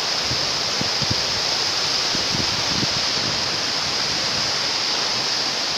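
Water rushing steadily over a concrete river weir, a continuous loud cascade.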